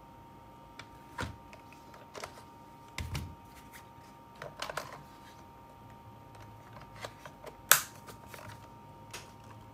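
Light plastic-and-metal clicks and knocks from handling a WE G39/SL8 gas blowback airsoft rifle and its short 5-round magazine, with one sharp, loud click nearly eight seconds in.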